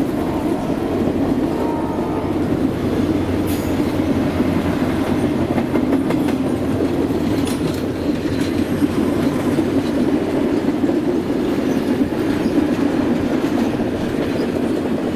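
Canadian Pacific Holiday Train's lit boxcars and passenger cars rolling past close by: a steady rumble of steel wheels on rail, with a few faint clicks.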